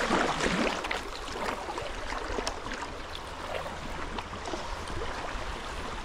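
Fast, shallow river water rushing and splashing close by, with a louder splash in the first half second.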